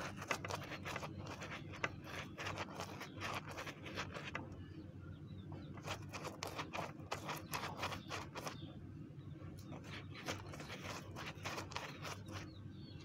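Silicone pastry brush dabbing and stroking ghee over a naan: quick soft brushing strokes in three runs with short pauses between, over a steady low hum.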